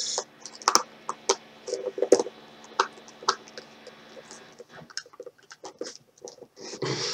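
A camera's retail box being opened and its packaging handled by hand: irregular clicks, taps and scrapes, with a few louder knocks in the first three seconds.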